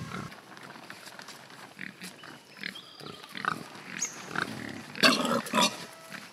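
Pigs grunting and snuffling as they root and feed on greens, in short scattered sounds, with a louder burst about five seconds in.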